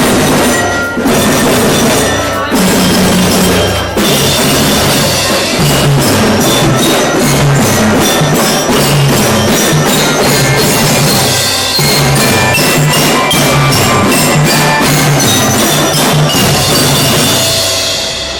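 Children's marching drum band playing: rapid, steady drumming with a high bell-lyre melody over it, dying away near the end.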